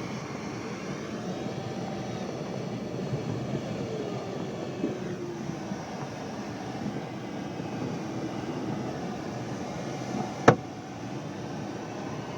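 Steady rushing airflow noise in an aircraft cockpit in flight, with faint tones sliding up and down. A single sharp click comes about ten and a half seconds in.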